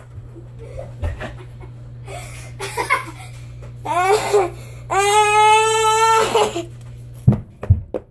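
A boy laughing and letting out voiced squeals, the longest a high held note of about a second and a half, followed by a couple of sharp knocks near the end.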